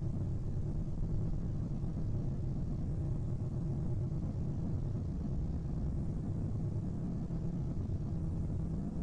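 Steady low rumbling drone with no breaks or changes, presented as the sound of asteroid 2009 YE7, a space-sound rendering rather than anything heard through air.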